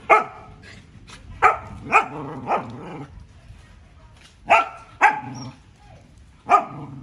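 A dog barking: about seven short, sharp barks in little runs of one to three, with pauses of a second or two between the runs.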